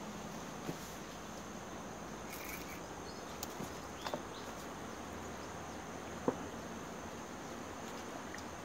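Steady drone of insects in the background, with a few short clicks scattered through it.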